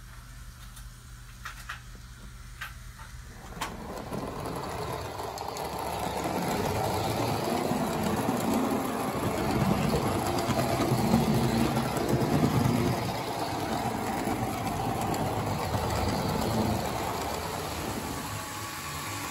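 Lionel O-scale Santa Fe diesel locomotive running along model railroad track: a steady motor whir with wheel rumble, loudest near the middle. It is preceded by a few seconds of quieter running with faint regular clicks, about one a second, from a small N-scale train.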